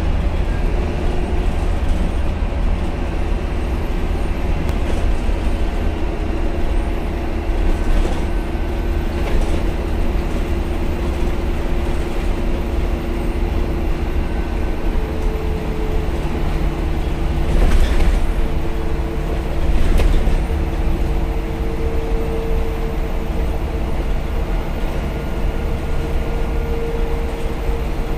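Interior sound of an ADL Dart SLF single-deck bus under way: its diesel engine running steadily with a low rumble, the engine note stepping up to a higher pitch a little past halfway. Several sharp knocks and rattles from the bus body, the loudest two close together about two-thirds of the way in.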